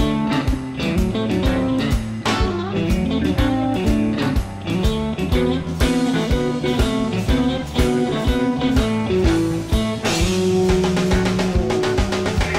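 Background music: a guitar-led blues-rock track over a steady drum beat, with a long held note about ten seconds in.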